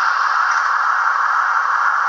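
Steady hissing running noise from a Trix BR140 model electric locomotive's onboard sound decoder, heard through the model's small speaker, with a brief brighter hiss near the start.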